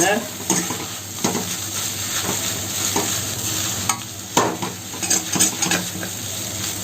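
Chow mein noodles with chicken and prawn sizzling as they are stir-fried in a pan, with a utensil scraping and knocking against the pan every second or so.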